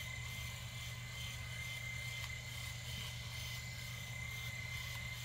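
Norelco rotary electric shaver running steadily, a low hum with a thin high whine. Its heads are pressed into a dab of paste in the palm, honing the blades to seat them in their heads.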